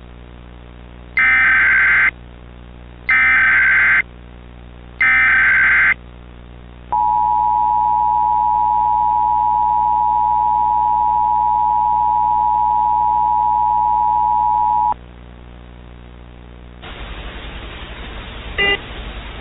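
Emergency Alert System tones: three bursts of SAME header data, about a second each, then the steady two-tone attention signal held for about eight seconds and cut off. A low hum lies underneath, and a hiss comes in near the end.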